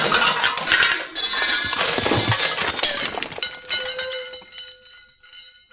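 Animation sound effects: a busy clatter of metallic clanks and glassy clinks, then from about three and a half seconds in a ringing, chime-like tone that slowly fades.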